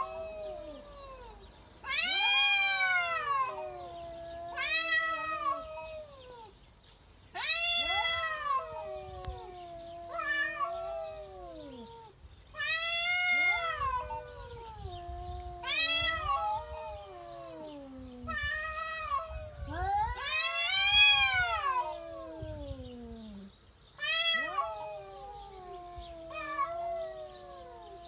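Two domestic cats yowling at each other in a territorial standoff over a trespassing stray. Long, drawn-out wails rise and fall in pitch, a new one starting every two to three seconds, with lower wails sliding downward between them.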